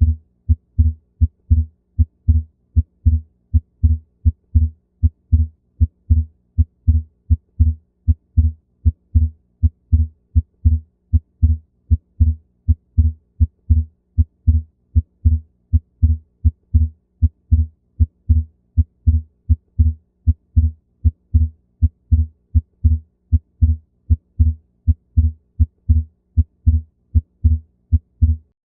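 Heart sounds heard through a stethoscope: a steady, regular lub-dub rhythm of low thuds. The second heart sound is split into two close components, a fixed split S2. The beats stop just before the end.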